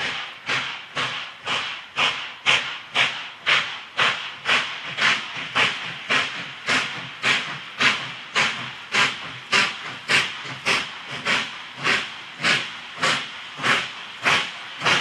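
Two 2-8-4 Berkshire steam locomotives, Pere Marquette 1225 and Nickel Plate Road 765, running side by side with a steady, even rhythm of exhaust chuffs, about two and a half a second.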